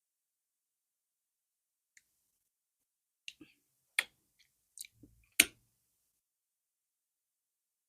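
Eating sounds: a handful of short, sharp mouth clicks and smacks, spaced roughly half a second to a second apart, starting about three seconds in.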